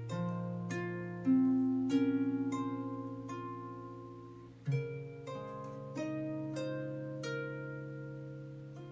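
Solo harp playing slow improvised music: plucked notes that ring on and fade slowly over low bass notes.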